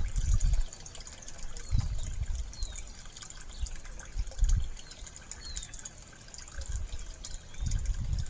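Water from a toilet flush running out of a sewer pipe into a bucket, a weak flow. Irregular low rumbles come and go underneath.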